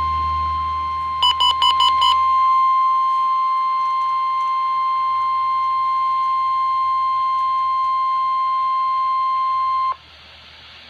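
Emergency Alert System warning alarm tone: one loud, steady high tone of the kind NOAA Weather Radio sounds to signal a warning, here a severe thunderstorm warning. About a second in, five quick beeps sound over it. The tone cuts off abruptly about a second before the end.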